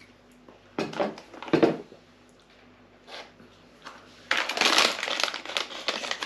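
Sweets packaging crinkling as it is handled and opened: a couple of short rustles, then a longer stretch of crinkling from about four seconds in.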